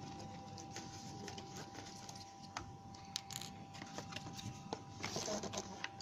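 Faint, sparse clicks and rustles of hands handling the cardboard and plastic packaging that holds a toy RC car, over a steady faint background tone.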